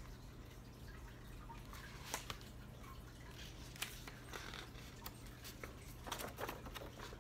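Pages of a hardcover picture book being handled and turned: a few short paper rustles and taps, scattered and soft, over a faint steady room hum.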